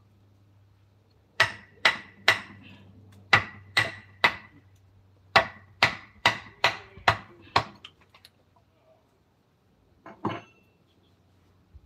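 Mallet striking a woodcarving chisel into wood: about a dozen sharp, ringing blows in three runs, then a single knock near the end.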